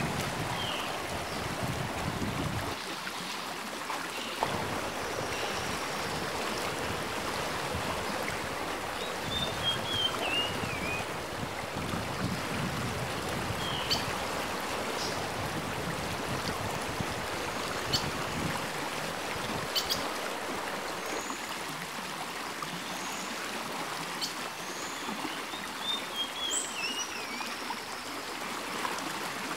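Small creek running with a steady rush of water. A bird repeats a short wavering, falling call three times over it, with a few high chirps and faint ticks.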